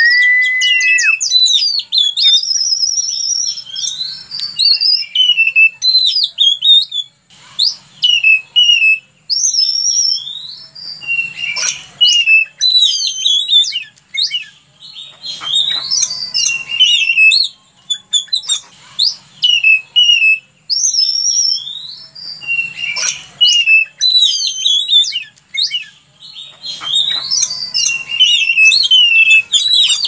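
Oriental magpie-robin (kacer) singing vigorously: a continuous, varied song of high whistles, slurred glides and quick chattering phrases, each a second or two long with short gaps. A steady held whistle opens it and ends about a second in.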